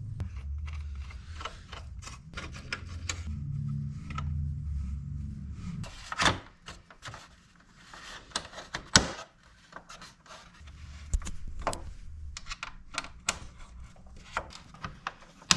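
Clicks, knocks and rubbing as motorcycle fairing panels are handled and fitted back onto the bike, with one sharp knock about nine seconds in. A low rumble runs under the first six seconds.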